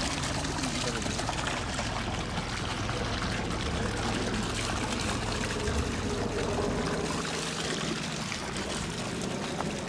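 Water pouring steadily from a pipe with a valve into a full concrete water trough, splashing onto the water's surface.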